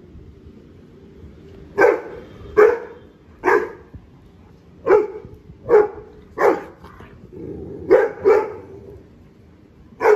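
Rottweiler barking repeatedly, about nine barks starting about two seconds in, coming roughly a second apart with some in quick pairs.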